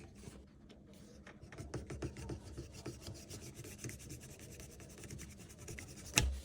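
Faint rubbing and scraping handling noise with scattered small clicks, ending in one sharp click about six seconds in.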